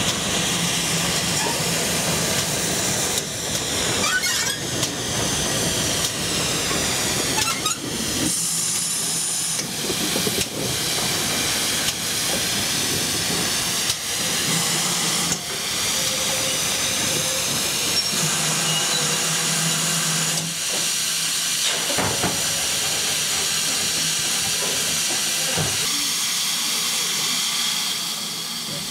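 Steady hiss of steam escaping from a standing GWR Modified Hall class 4-6-0 steam locomotive, with a few light knocks.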